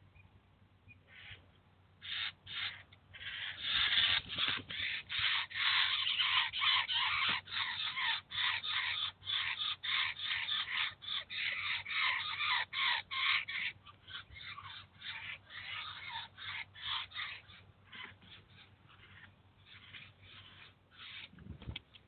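Eurasian jay fledglings giving harsh begging calls in a rapid series, about three a second. The calls are loudest for several seconds and then carry on more faintly in the second half.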